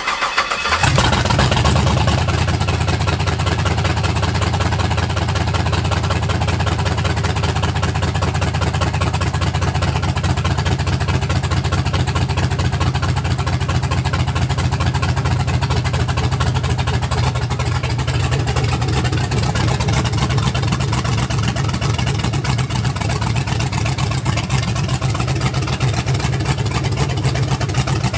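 LQ9 6.0-litre LS V8 swapped into a 1972 Chevelle, cranking briefly and catching about a second in, then idling steadily. This is a cold first start-up after the swap, on a tune that is not yet finished: the idle air control and fuel trims still need adjusting for the LS1 injectors.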